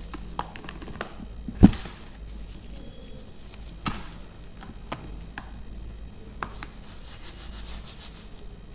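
Broken pieces of pressed baking soda crunching and crumbling, with scattered sharp cracks, the loudest about one and a half seconds in, and a patch of fine crackling near the end.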